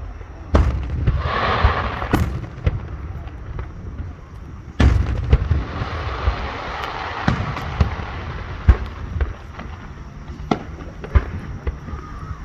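Aerial fireworks bursting: loud booms about half a second, two seconds and five seconds in, with many smaller cracks and pops between them.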